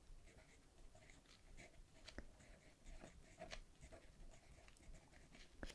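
Pen writing on a paper sheet: faint, quick scratching strokes as a word is written out.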